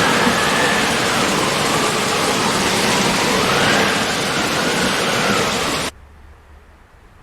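Heavy rain pouring down in a loud, steady hiss that cuts off abruptly about six seconds in, leaving only a faint hiss.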